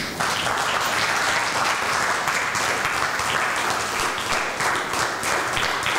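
An audience applauding, starting all at once and going on steadily.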